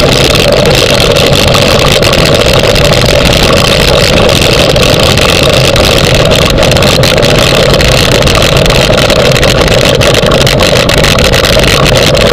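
Steady, loud rolling and rattling noise of a dog-pulled wheeled training rig running across grass, picked up by a camera mounted on the rig's frame.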